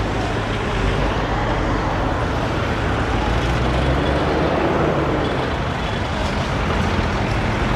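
Road traffic: buses and cars passing, with a steady low engine rumble and road noise.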